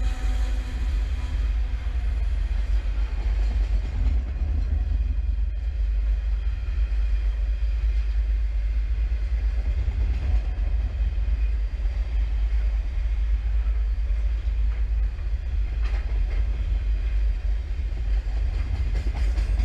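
Freight train wagons loaded with steel coils rolling past: a steady low rumble of wheels on rail, with an occasional faint click.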